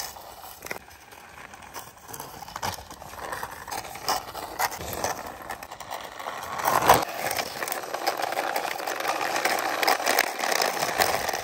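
Small plastic wheels of a toy CNG auto rickshaw rolling and scraping along a rough concrete wall top as it is pushed by hand, a gritty crackle with scattered clicks. It grows louder as the toy comes close, with one sharp knock about seven seconds in.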